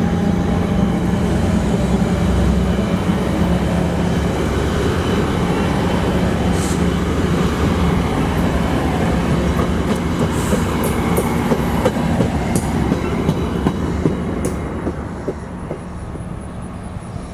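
Virginia Railway Express commuter train's bilevel passenger cars rolling past at a station, steady rumble with wheels clicking over rail joints. A few brief high squeals come in partway through, and the sound fades near the end.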